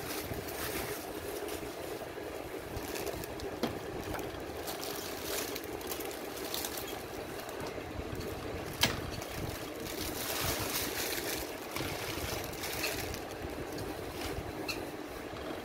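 Handling noise from fitting a slit lamp onto its table base: scattered rustles and small clicks over a steady hiss, with one sharp knock about nine seconds in as the plastic-wrapped microscope and illumination unit is set down on the base.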